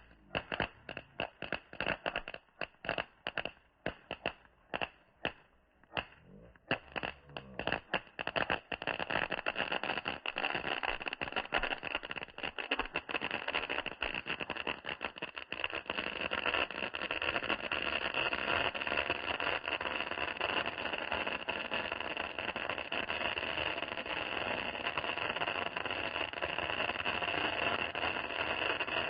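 A 'power point pencil' firework crackling. It starts as separate sharp pops, two or three a second, then after about seven seconds thickens into a dense, continuous crackle.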